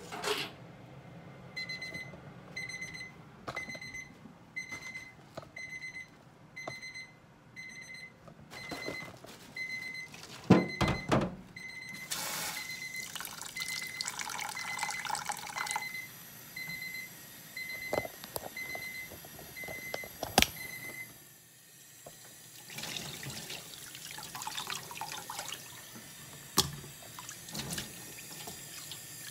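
Electronic kitchen timer beeping, a high beep about twice a second for some twenty seconds, then stopping. A loud clunk about ten seconds in. Near the end, a kitchen tap runs water into a stainless sink.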